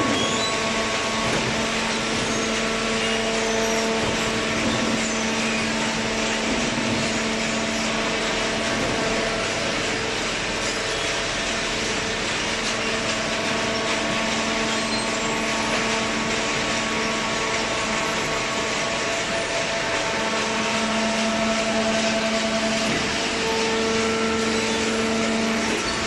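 Horizontal hydraulic cardboard baler and its feed conveyor running: a steady mechanical drone under a constant hum.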